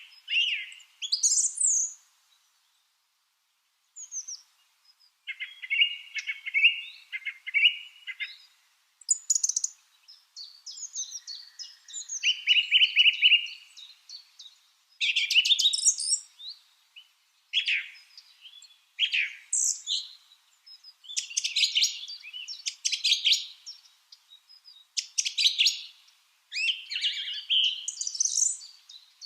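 Lovebirds chirping and calling in quick, sharp, high-pitched bursts, falling silent for a couple of seconds near the start and then calling almost without pause.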